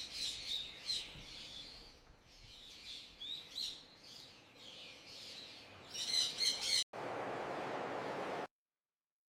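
Birds chirping and tweeting in short repeated calls, with a quick run of chirps about six seconds in. The chirping cuts off abruptly and gives way to a steady hiss for about a second and a half, then silence.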